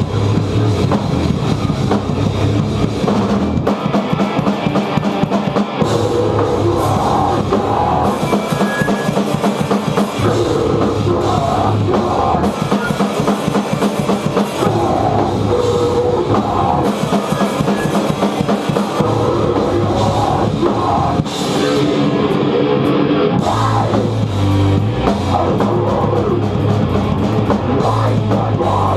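Rock band playing a heavy song, driven by a drum kit with guitars.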